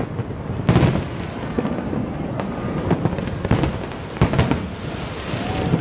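Aerial fireworks display: shells bursting with sharp bangs, a loud one about a second in and a close pair just after four seconds, with smaller bursts between.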